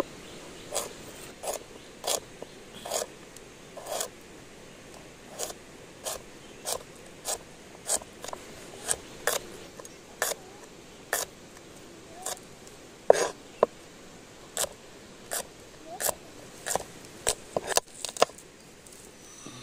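Large cleaver chopping shallots on a wooden board: a slow, uneven series of sharp knocks, about one or two a second, with the hardest strike about two-thirds of the way through and a quicker run of chops near the end.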